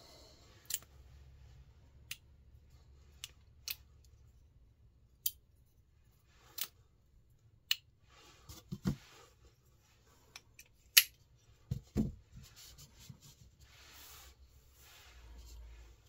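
Small folding pocket knife blades clicking open and shut: about a dozen sharp metallic clicks at irregular intervals, the loudest about eleven seconds in. A couple of soft thuds of knives set down on the mat come near the middle, and hands rustle near the end.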